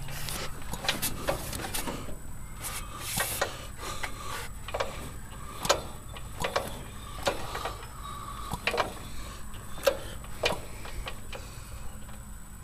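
Irregular light clicks and taps, about one or two a second, as a Briggs & Stratton twin-cylinder engine is turned over by hand with its valve cover off. One cylinder's valves work, while the other cylinder has a damaged valve and a piston that will not move, which the owner takes for a broken connecting rod.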